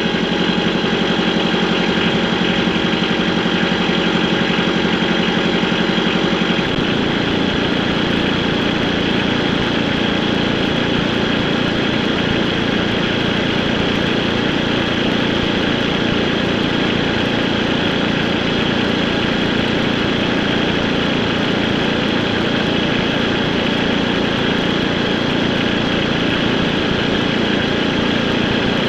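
A vehicle engine running steadily during a ride. About seven seconds in, the sound changes abruptly from an even hum with a clear pitch to a rougher, noisier rumble.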